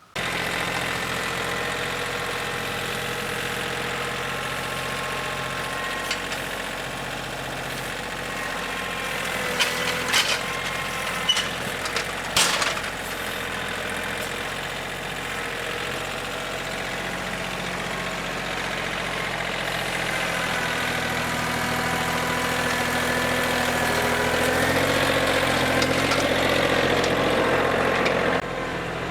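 An engine running steadily at a constant speed, with a few sharp knocks about ten to twelve seconds in. It grows a little louder in the last third, then drops off suddenly near the end.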